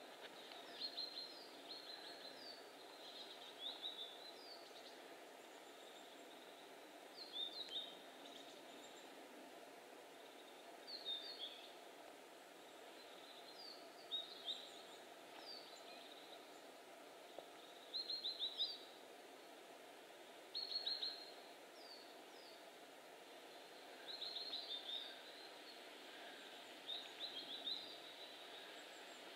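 A small songbird calling in short, high chirping phrases, a cluster every few seconds, over a faint steady hiss of forest ambience.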